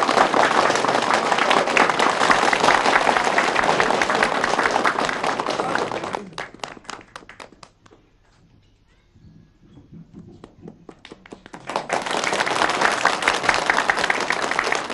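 Audience applauding. About six seconds in it dies away to a few scattered claps and a short lull, then the applause starts up again near the end.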